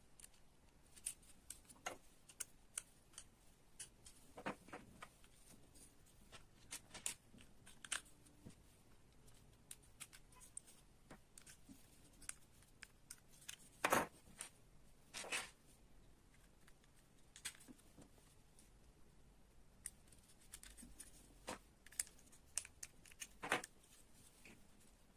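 Small hard parts of a mechanical model excavator kit clicking and clacking as they are handled and fitted: irregular light ticks, with two louder clacks a little past halfway.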